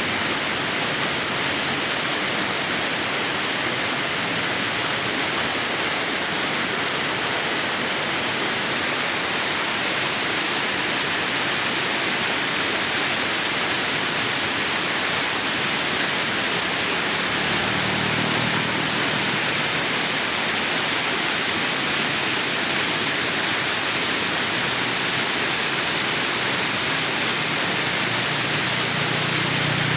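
River water flowing with a steady rush. A faint low hum comes in about two-thirds of the way through and again near the end.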